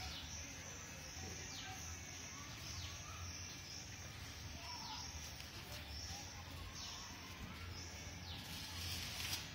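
Small birds chirping, short high falling calls repeating about once a second, over a steady low outdoor hum.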